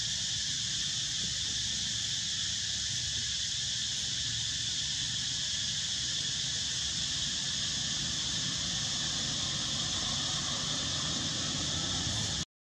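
Steady, unbroken insect chorus, a high even shrilling, over a low rumble. The sound cuts out for a moment near the end.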